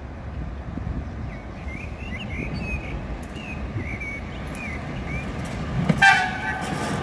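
Shunting locomotive approaching at low speed with a growing low rumble, then giving a short horn toot about six seconds in. Birds chirp during the first half.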